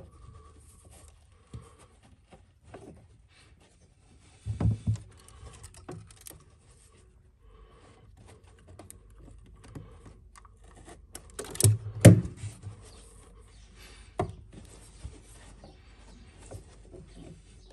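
Carpet being handled and pressed against a vehicle bulkhead and slit with a Stanley knife: quiet rubbing and scraping with a few short knocks, the loudest about 12 seconds in.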